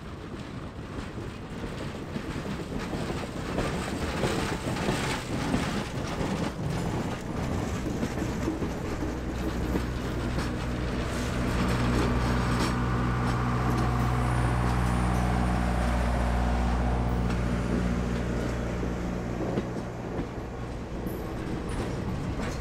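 Passenger railroad cars rolling past, their steel wheels clicking over the rail joints. A steady low droning hum joins in about nine seconds in and fades shortly before the last car goes by.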